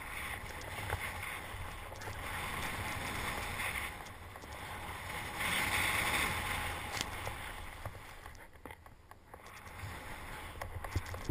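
Snowboard sliding and turning through powder snow: a continuous hiss that swells and fades with each turn, loudest about six seconds in, with wind rushing over the microphone. A few small clicks come near the end.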